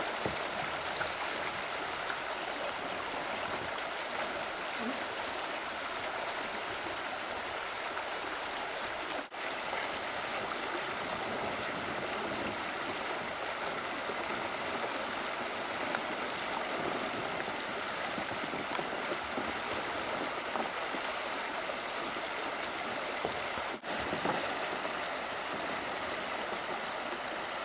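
Steady rush of a shallow river riffle, small rapids running over rocks, cut off briefly twice.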